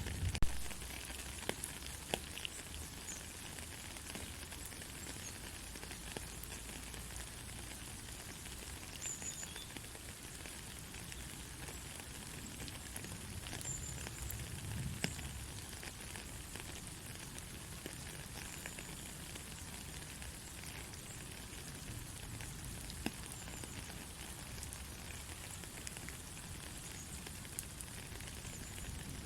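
Soft rain falling steadily: an even hiss with scattered drops ticking, a few louder ones in the first couple of seconds.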